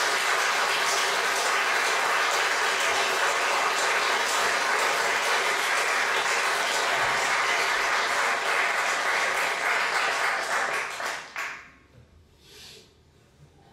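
Audience applauding, a dense and steady clapping that dies away about eleven seconds in.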